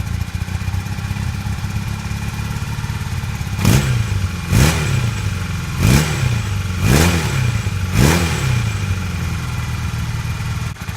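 1982 Honda CB450's air-cooled parallel-twin engine idling a little rough after idle and carburetor-balance adjustment, blipped five quick times about a second apart in the middle, each rev rising and falling back to idle.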